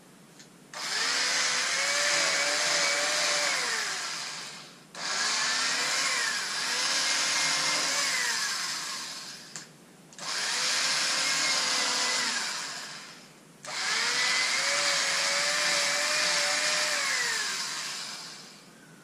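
Handheld electric fabric cutter run in four bursts of three to four seconds each while cutting stretch lycra. Each time its motor whine climbs as it starts, holds steady, and sinks as it stops.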